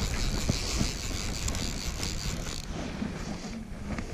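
Wind buffeting the microphone as a low, uneven rumble. A higher hiss runs over it and stops about two and a half seconds in.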